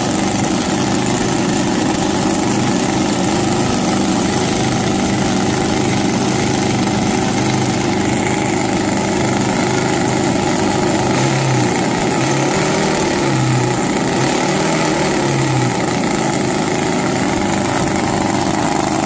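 Supercharged mini V8 nitro-methane RC boat engine running steadily, with a few brief swells in its low note past the middle.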